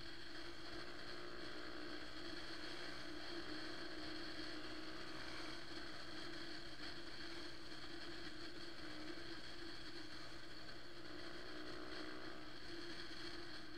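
Motorcycle riding at a steady cruising speed: an even engine hum mixed with wind and road noise, with no change in pace.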